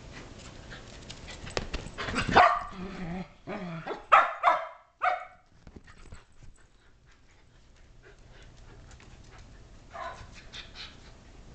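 Shetland sheepdogs barking in rough play: short barks about two seconds in, a quick pair about four seconds in, and more near the end, with quieter stretches between.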